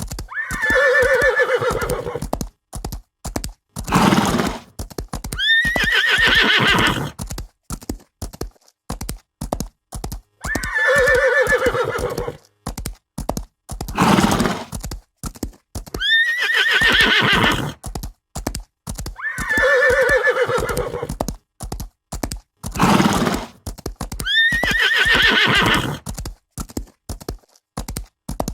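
Horse neighing over a steady clip-clop of hooves. A neigh, a short snort and a higher whinny come as a set, and the same set repeats about every nine to ten seconds.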